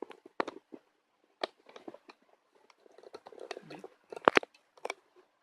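Handling noise: scattered sharp clicks and knocks of things being picked up and set down, the loudest about four seconds in.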